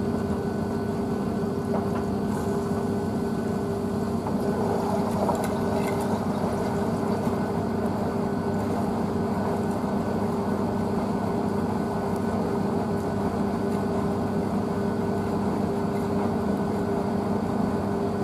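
Blomberg WNF9448 front-loading washing machine turning its drum full of wet bedding during a rinse, the motor giving a steady hum with a few even tones and water sloshing through it.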